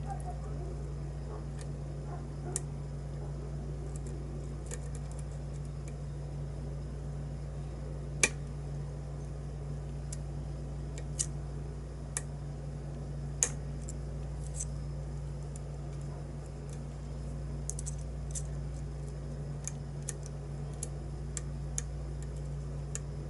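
Irregular small metallic clicks and ticks of a lock pick and tension wrench working the pins inside a custom challenge padlock, with a few sharper, louder clicks scattered among them, over a steady low hum.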